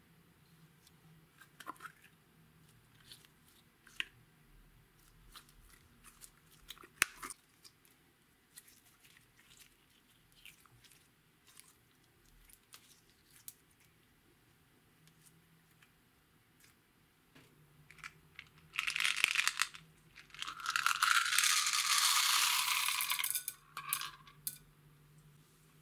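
Small sticky clicks and squelches of slime being squeezed out and stretched, then, about two-thirds of the way in, a loud rattling rush of pearl beads poured from a jar into a glass bowl, in two pours lasting about four seconds in all.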